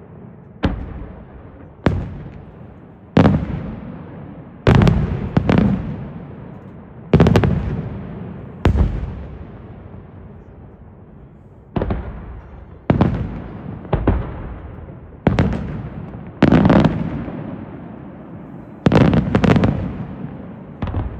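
Aerial fireworks shells bursting one after another, about fifteen sharp bangs at uneven intervals, some in quick pairs. Each bang is followed by a rumbling echo that dies away over a second or two.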